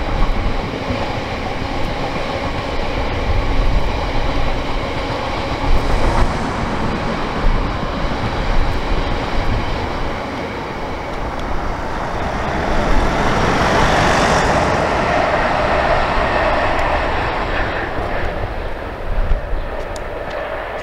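Loaded hopper wagons of a long freight train rolling past with a steady rumble and wheel noise. Then a passenger train goes by, and the rushing noise grows loudest for several seconds before fading as it moves away.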